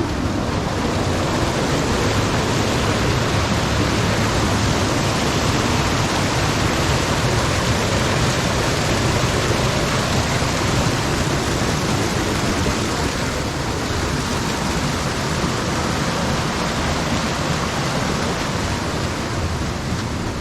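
Steady, loud rush of fast-flowing creek water cascading over rocks.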